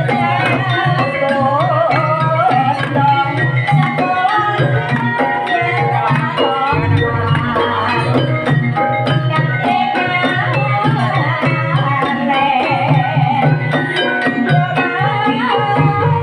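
Banyumasan gamelan music for an ebeg horse-trance dance: hand drums keep a steady beat under a melody with a wavering lead line.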